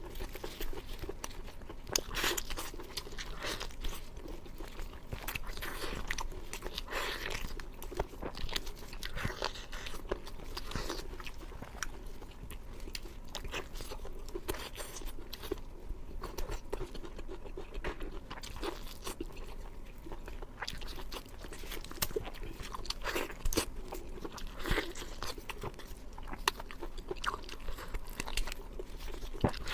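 Crispy food being bitten and chewed close to the microphone, with irregular crunches throughout.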